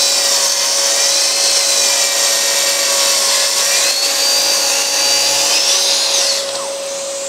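Festool track saw running on its guide rail, ripping along the edge of a door, while a dust extractor draws through the hose. The saw's whine rises in pitch about four seconds in. A little after six seconds the cutting noise falls away and the extractor keeps running.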